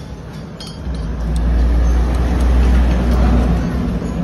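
A motor vehicle's engine running, a low rumble that swells up about a second in and then holds steady.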